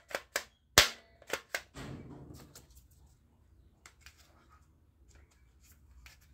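Plastic clicks and rattles from a toy foam-dart shotgun being handled and loaded: several sharp clicks in the first second and a half, a short scrape about two seconds in, then a few faint taps.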